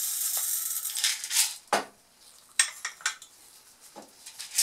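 Desiccant pellets pouring through a glass funnel into a glass flask with a steady hissing rattle that stops about a second and a half in. It is followed by several light, separate clinks of glassware as the funnel is handled.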